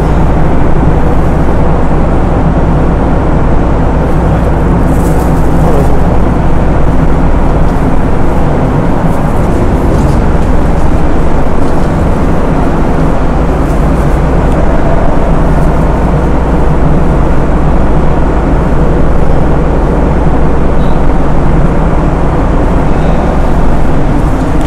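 Car ferry's machinery droning steadily inside the steel vehicle deck: a loud, even low hum with several steady low tones.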